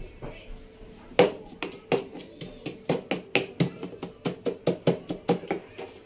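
Stone mortar and pestle pounding: sharp, evenly paced knocks about three a second, each with a short ring, starting about a second in.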